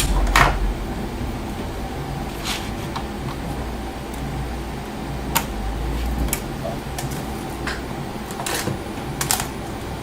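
Scattered sharp plastic clicks and taps as a laptop keyboard is pried loose and handled, about half a dozen separate clicks over a low rumble that stops a little past halfway.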